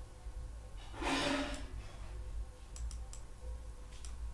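A few faint computer mouse clicks over a steady low hum from the recording microphone, with a short breathy rush of noise about a second in.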